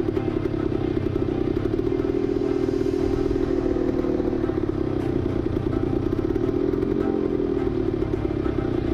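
1972 Yamaha LT2 100's single-cylinder two-stroke engine running at a steady, even pitch, held at constant revs throughout.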